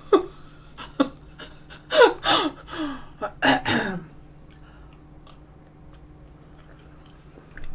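A woman's short vocal bursts, about half a dozen in the first four seconds, each falling in pitch. After that come faint clicks of a spoon scooping tiramisu from a plastic container.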